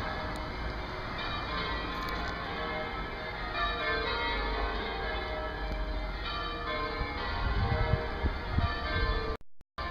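Church bells ringing a peal: several bells of different pitch struck one after another in a steady stream. Some low rumbling comes in near the end, and the sound cuts out briefly just before it ends.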